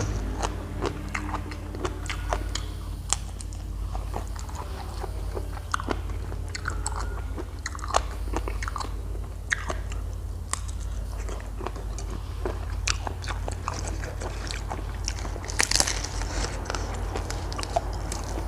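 Close-up chewing and crunching as a person eats tam sua, spicy pounded salad with rice noodles and pickled shrimp, with many small irregular crunches and mouth clicks and a louder crunchy burst near the end.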